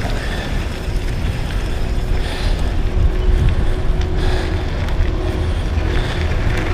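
Wind buffeting the camera's microphone on a fast downhill mountain-bike descent, with the tyres of a Specialized Demo 8 downhill bike rolling over the dirt trail. A steady low rumble, with brief louder hissing surges about two and four seconds in.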